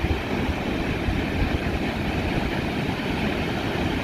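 Sea surf washing in a steady rush, under a heavy low rumble.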